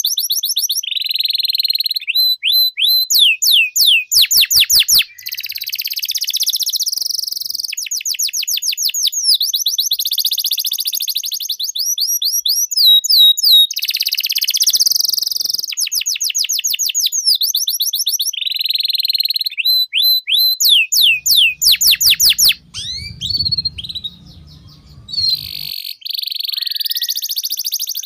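Domestic canary singing a long, rapid song of fast repeated sweeping notes and buzzy trills. A low hum lies under it for a few seconds near the end, where the song briefly thins out.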